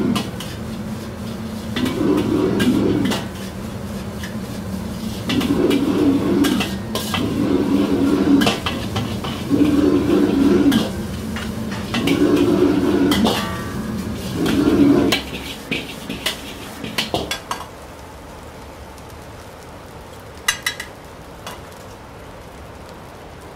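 Metal wok ladle scraping and clanking against a wok as fried rice is stir-fried over a gas wok burner, whose steady rush surges louder again and again. The burner noise drops away about 15 seconds in, leaving a few sharp metal clinks of ladle and wire strainer, one ringing briefly near the end.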